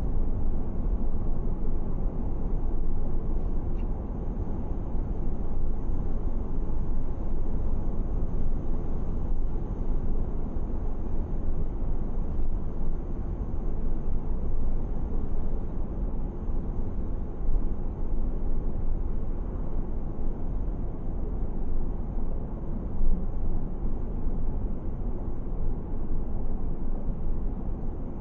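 Car driving on a paved road: a steady low rumble of tyres and engine.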